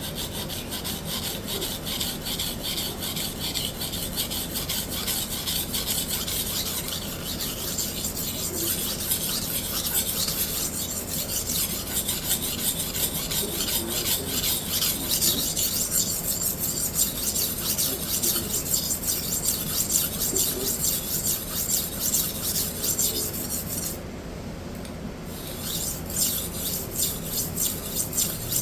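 Hard Japanese-steel knife blade being stroked rapidly back and forth on a sharpening stone, a steady rasping scrape as a new cutting bevel is ground in; the strokes stop briefly near the end, then start again.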